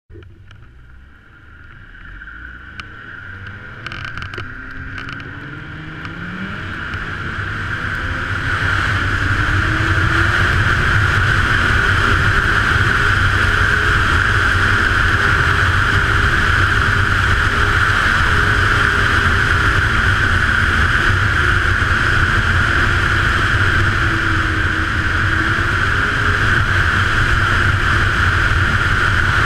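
2014 Ski-Doo Renegade 900 ACE snowmobile's three-cylinder four-stroke engine pulling away, rising in pitch and growing louder over the first several seconds. It then runs steadily at cruising speed under a constant hiss.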